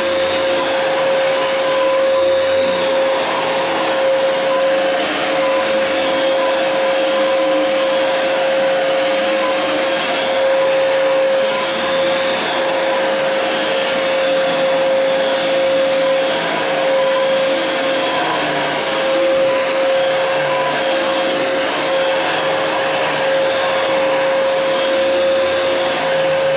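Fantom upright vacuum cleaner running steadily with a constant high whine, passing over carpet to pick up spilled cat litter.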